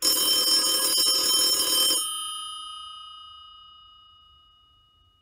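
Telephone bell ringing: one loud ring of about two seconds, then the bell's tone dies away slowly over the next three seconds.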